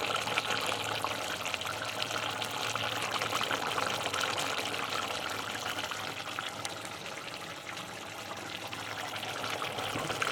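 Chicken wet fry simmering in a covered pan: a steady dense bubbling and sizzling, easing a little about eight seconds in, over a low steady hum.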